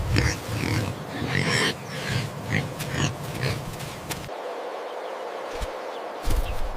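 A young animal squealing and grunting in short calls, several in a row. About four seconds in, these give way to a quieter hiss for about two seconds.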